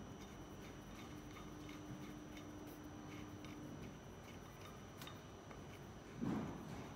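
Faint, regular ticking, about three ticks a second, under a faint steady hum, with one soft, low knock near the end.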